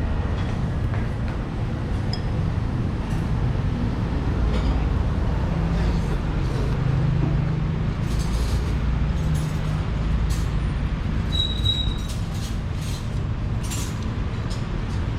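Steady low rumble of background noise under scattered clinks and clicks of spoons and chopsticks against soup bowls. The clinks come thickest in the second half.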